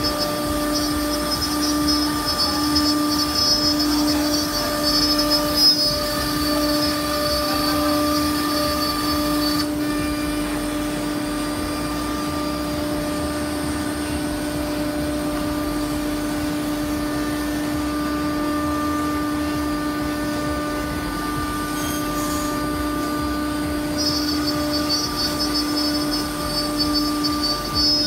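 A SEMAC SM-1325R1B CNC router's spindle runs with a steady high whine while it routes grooves into a melamine-faced board. A higher, hissing cutting noise sits on top of the whine, drops out about ten seconds in, and comes back near the end.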